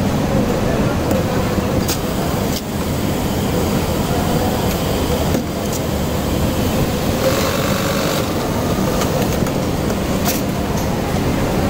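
Steady din of garment-factory sewing machinery running, with a steady hum and a few sharp clicks.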